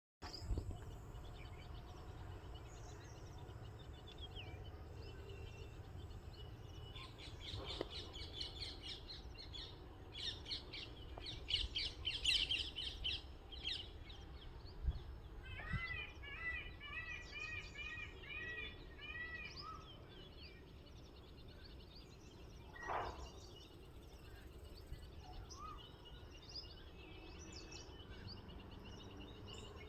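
Several wild birds calling over steady background noise. A burst of rapid high chirping builds between about 7 and 14 seconds in, followed by a run of about eight evenly repeated rising-and-falling whistled notes. Scattered fainter calls fill the rest.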